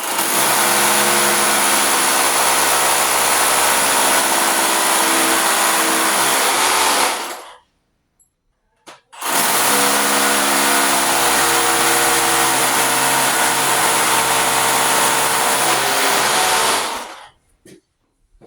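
Corded hammer drill with a masonry bit boring a pilot hole for a Tapcon screw into a concrete floor, run twice for about seven seconds each, with a pause of about a second and a half between runs.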